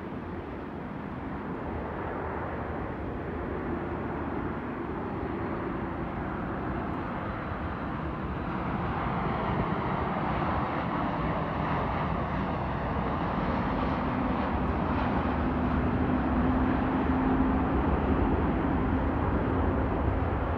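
Boeing 737 jet airliner on final approach with gear down, its engine noise a steady rush that grows louder as it passes, with a low hum that slowly shifts in pitch.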